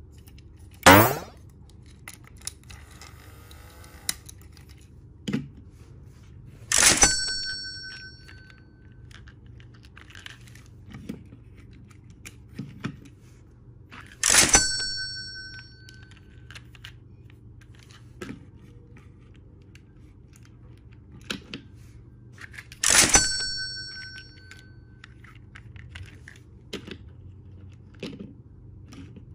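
Light clicks and knocks of plastic toy trains and blocks being handled on a wooden table, over a steady low hum. About a second in there is a quick falling whoosh. Three times, roughly eight seconds apart, a sharp strike gives a bright metallic ring that dies away over about a second and a half, the same each time.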